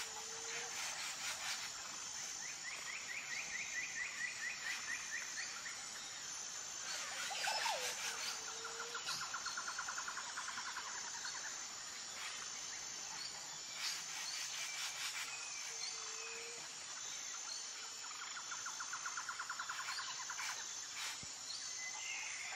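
Outdoor nature ambience: a steady high insect drone, with bird trills of a second or two recurring several times and a few short faint calls.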